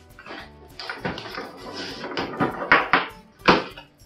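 A pack of AA batteries being torn open by hand: the packaging rustles and crackles, and the batteries click against each other, in a string of short bursts that are loudest near the end.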